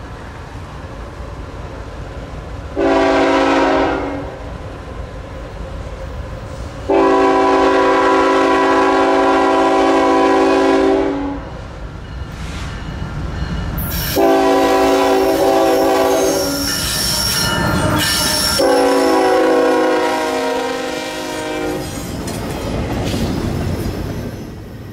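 Air horn of a GE ET44AH diesel locomotive leading an intermodal freight train, sounding four blasts: a short one about three seconds in, then three long ones. Under it the train rumbles as it approaches, and the cars clatter over the rails as they pass near the end.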